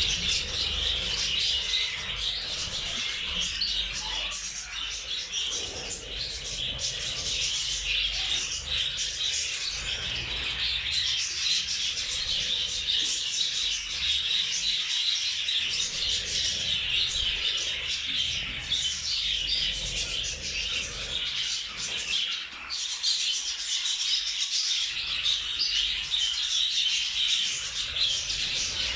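A pair of rose birds (lovebirds) chattering and chirping without a break: a dense stream of high, squeaky calls.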